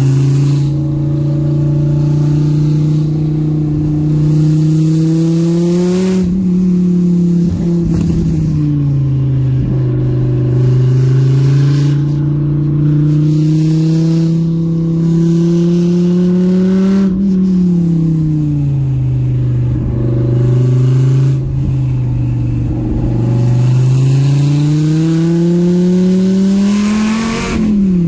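Dodge Viper GTS's stroked 550-cubic-inch V10 running under load, heard from inside the cabin. Its revs climb slowly and then fall away, three times.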